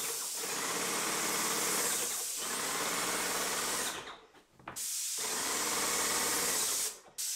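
Airless paint sprayer in use: a steady hiss of paint spraying from the gun over the pump's humming, pulsing motor. The spray cuts off briefly about four seconds in and again near the end as the trigger is let go.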